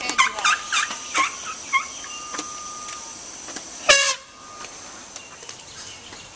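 A quick run of short, squeaky animal calls, then one loud, brief harsh call just before four seconds in.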